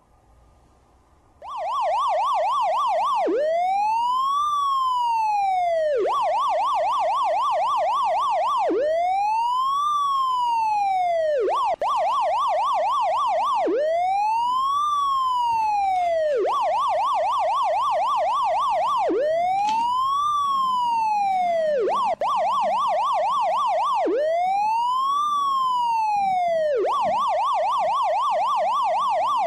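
Electronic emergency-vehicle siren, starting about a second and a half in and repeating one pattern: a rapid warbling yelp for under two seconds, then a single slow wail that rises and falls. The tone drops out briefly twice.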